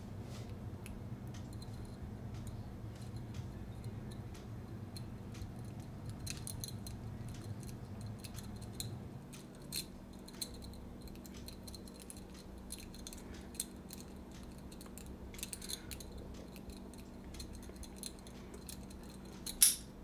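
City rake rocking up and down in the keyway of a brass Master Lock No. 150 padlock under light tension: faint, irregular small metallic clicks and scraping of the pick against the pins. A louder click near the end as the lock opens.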